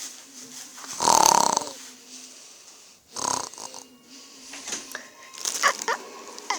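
A man snoring in his sleep: a loud, rasping snore about a second in and a shorter one about three seconds later, with fainter breathing sounds between.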